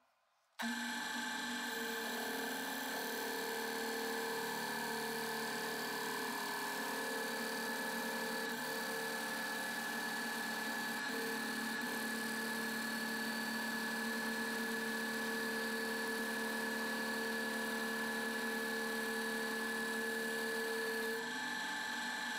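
Drill press running steadily, with a constant whine, as a large Forstner bit bores into a thick wooden disc. The sound starts abruptly about half a second in.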